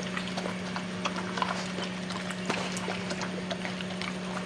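Labrador retriever lapping chicken soup from a stainless steel bowl, a quick irregular run of small wet clicks.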